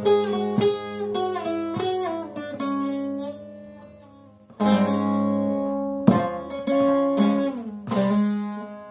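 Long-necked bağlama (uzun sap saz) played solo in an improvisation: single plucked melody notes over a steady open-string drone. The run of notes fades almost to nothing about four seconds in, then a loud strum starts a new phrase, with another strum near the end.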